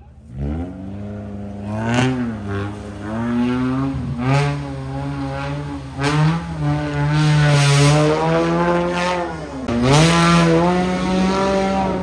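Engine of a 4x4 off-road race vehicle revving hard in repeated surges, its pitch climbing and dropping as it drives through a river, with water splashing.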